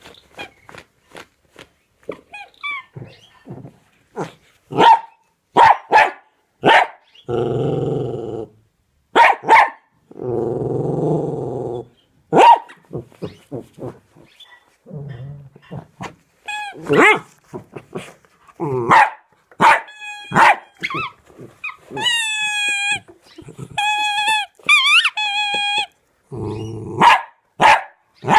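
A dog barking in short sharp barks, with stretches of growling. Near the end come several high squeaks.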